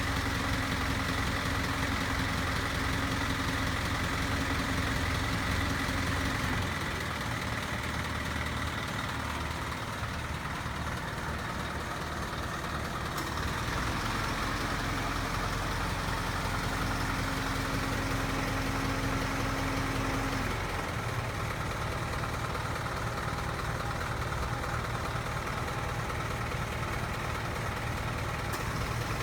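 Truck engine idling steadily. Its low note shifts about seven seconds in and again about twenty seconds in.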